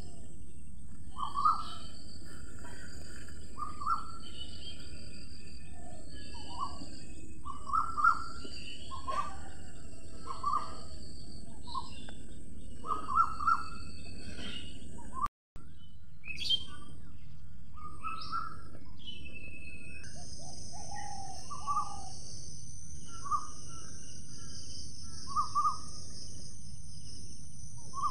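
Birds chirping and calling every second or two over a steady low background hiss. The sound cuts out briefly about fifteen seconds in, and a steady high buzz joins about twenty seconds in.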